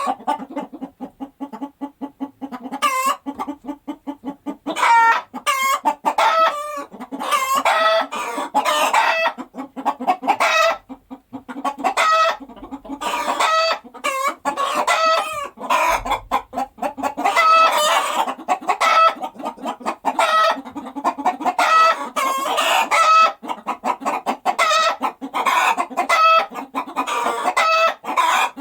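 Hens clucking continuously, many short calls overlapping one another.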